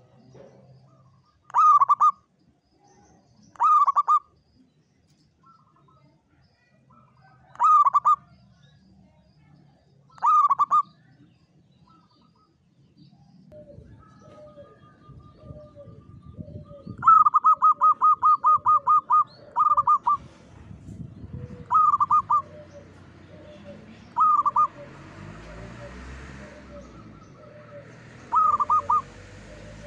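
Zebra doves (local Javanese perkutut) singing: short phrases of rapid staccato cooing notes every two to three seconds, then a second bird whose song includes one long run of quick repeated notes about 17 seconds in. Fainter, lower notes repeat steadily underneath in the second half.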